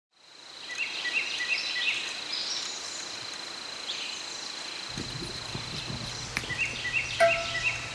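Outdoor ambience fading in: repeated short bird chirps over a steady high insect-like drone. About five seconds in a low hum joins, and near the end chime-like notes begin.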